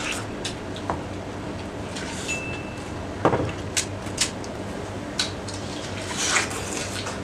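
Watermelon being eaten: wet bites, crunches and slurps of juicy flesh, coming as scattered clicks and short smacks, with one louder thump a little over three seconds in. A steady background hum runs underneath.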